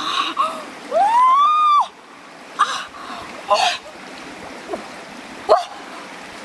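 A woman's long excited cry about a second in, rising, holding and falling in pitch, while her hands splash in a shallow stream as she catches a fish. A few short splashes follow, over the steady hiss of running water.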